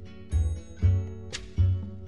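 Instrumental music with a heavy bass beat.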